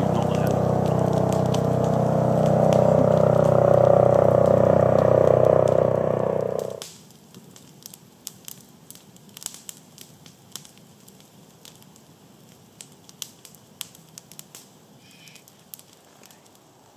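A piston-engined aircraft drones overhead, a steady low multi-toned hum that grows louder, then cuts off suddenly about seven seconds in. After that, only a campfire crackling and popping with scattered sharp snaps remains.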